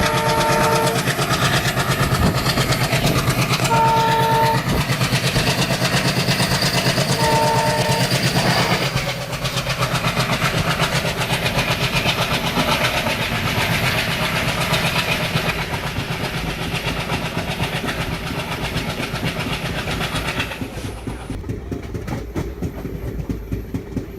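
Passenger train with a flat wheel running on the rails, heard from a coach: a fast, even thudding over steady wheel and rail noise, the sign of a wheel worn flat on one spot. Three short two-tone blasts of the WDP4 diesel locomotive's horn sound near the start, about four seconds in and about seven seconds in.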